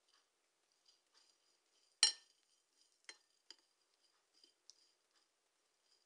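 Metal teaspoon clinking and scraping against a china plate as sugar is sprinkled and the grapes are rolled in it. One sharp clink comes about two seconds in, followed by a few lighter taps.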